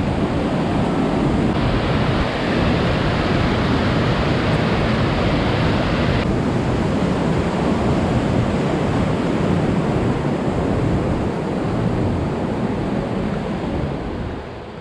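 Rushing whitewater of a mountain creek tumbling over rocks, a loud steady roar of water that fades near the end.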